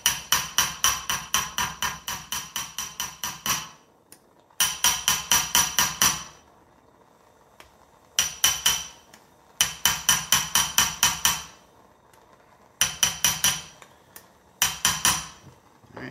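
Small hammer rapidly tapping the top of a steel socket extension, driving a heated prong nut into a PVC end cap. The metallic taps come about five a second in six runs, the first and longest lasting several seconds, with short pauses between them.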